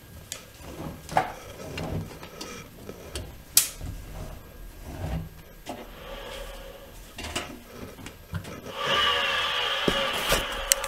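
Irregular knocks, clicks and rubbing. From about nine seconds a louder, steadier rasping sound with a few pitched tones lasts about two seconds.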